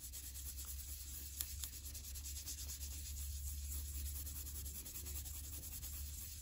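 Dry brush rubbing and tapping over a gold-leafed paper card, brushing off the loose gold leaf that has not stuck to the glue: a light, continuous scratchy rustle, with a couple of small ticks about a second and a half in.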